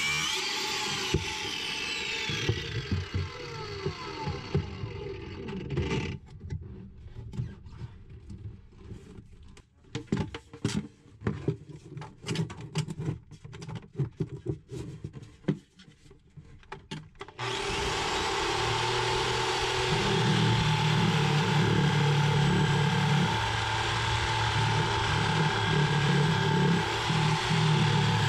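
A cordless Makita angle grinder with a cutoff wheel, used at the base of a heavily corroded seacock, runs and winds down with a falling whine. Then comes about ten seconds of scattered knocks and clatter. From about seventeen seconds in, a reciprocating saw cuts steadily at the seacock's base.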